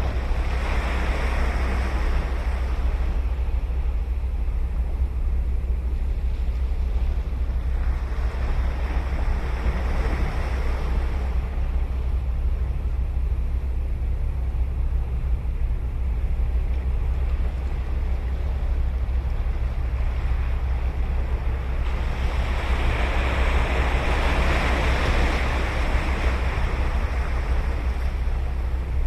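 Ocean waves breaking and washing up the beach, three surges that swell and fade, the one near the end the biggest, over a steady low rumble.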